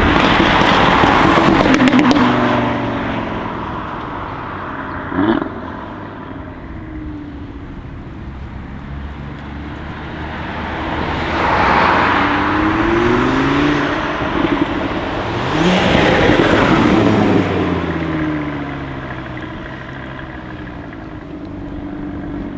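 Audi RS3's turbocharged five-cylinder engine accelerating hard several times, its note rising and falling in pitch, with one sharp exhaust pop about five seconds in.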